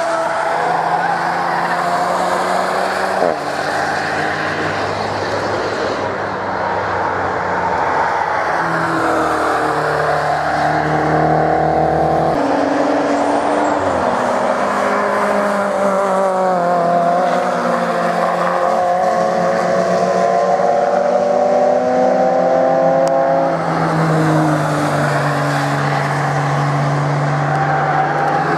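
Cars driving past on a race track one after another, their engines accelerating hard. The engine note climbs steadily, then drops suddenly at gear changes or as one car gives way to the next.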